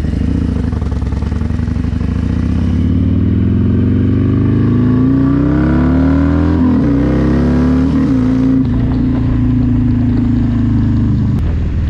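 Harley-Davidson Milwaukee-Eight V-twin through a Bassani mid-length 2-into-1 exhaust, with an S&S 475 cam, accelerating from a stop: the engine note climbs, drops and climbs again at gear changes about six and a half and eight seconds in, then holds steady at cruising speed.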